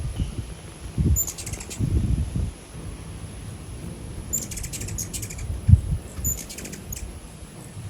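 Hummingbirds at close range: a low whirring wing hum that comes and goes in surges as the birds dart about, and three short bursts of high, rapid chittering calls, about one, four and a half, and six and a half seconds in.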